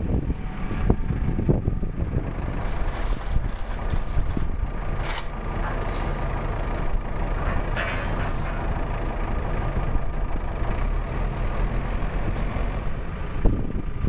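Backhoe loader's diesel engine running steadily while it works, with a few sharp knocks now and then.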